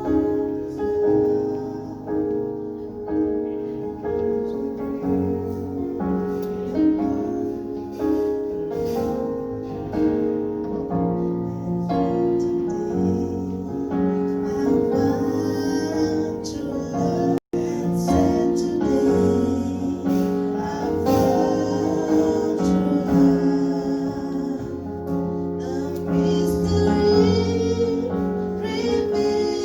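Gospel song: female voices singing with keyboard accompaniment, broken by a split-second dropout about halfway through.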